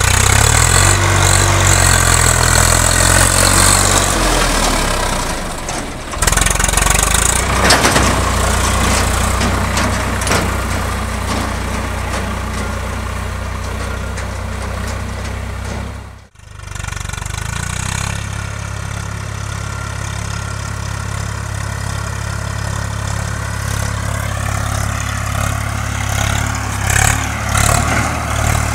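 Swaraj 4WD tractor's diesel engine running while it drags a trailer through deep mud, its engine speed shifting up and down in the first few seconds. The sound breaks off for a moment about sixteen seconds in, then the engine carries on steadily.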